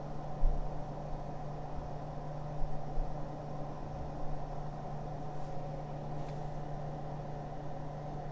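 Steady low hum with a faint hiss, like a machine running, with a few short low thuds.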